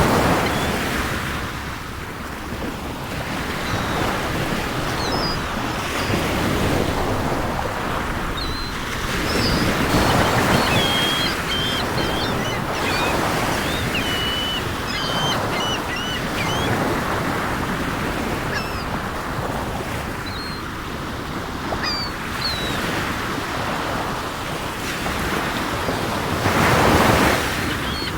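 Sea waves washing ashore in slow swells, the loudest surges near the start, about ten seconds in and near the end. Seagulls call now and then above the surf, mostly through the middle.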